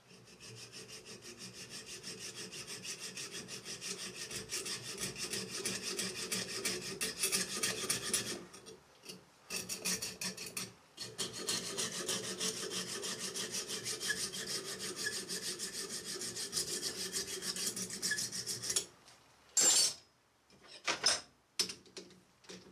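Small hand hacksaw cutting through a threaded metal part held in a lathe chuck, in quick, even back-and-forth strokes with two short breaks, stopping about nineteen seconds in. A few sharp knocks follow near the end.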